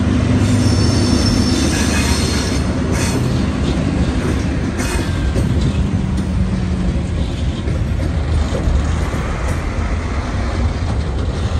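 Two TasRail TR class diesel-electric locomotives rumble past at close range, followed by loaded container wagons rolling over the level crossing. The engine rumble is heaviest in the first few seconds, and wheel squeal and scattered wheel clicks sound over the steady rolling noise.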